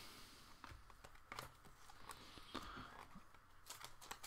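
Faint rustling and a few light ticks of trading cards being flipped through by hand.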